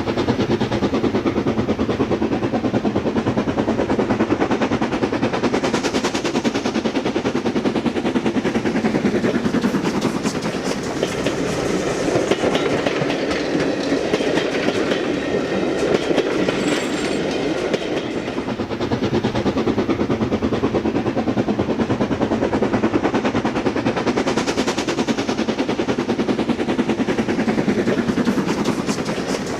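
OO gauge model train running on the layout: a dense rapid clatter of small wheels over the rail joints, with a faint steady hum from the motor.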